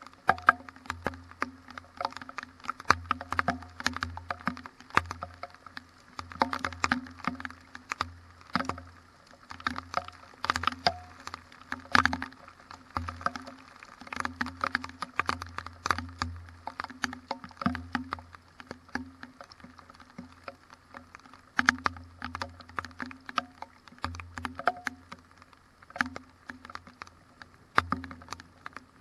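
Raindrops in a windy thunderstorm ticking and tapping irregularly, several a second, on or near the GoPro, with wind rumbling on the microphone in gusts.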